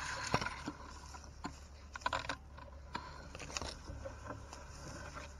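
Wet gill net being hauled by hand over the side of a wooden boat, water dripping and splashing off the mesh, with a few light knocks against the hull; the splashes come thickest about two seconds in and again near three and a half seconds.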